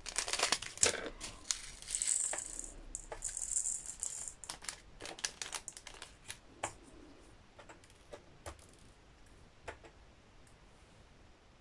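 Small plastic bag of round resin diamond-painting drills snipped open with scissors and crinkling, then the drills pouring in a hissy rattle into a plastic sorting tray about two seconds in. Scattered light clicks of drills and plastic follow as the tray is handled, growing quieter near the end.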